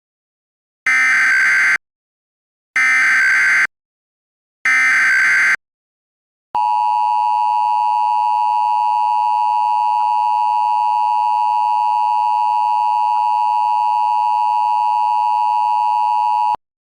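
Emergency Alert System tones opening a severe thunderstorm warning: three bursts of about a second each of the SAME digital header, then the steady two-tone attention signal (853 and 960 Hz), held about ten seconds and cut off abruptly.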